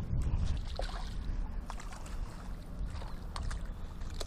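Wind rumbling on the microphone and water sloshing against jetty rocks, with a few scattered light clicks and knocks.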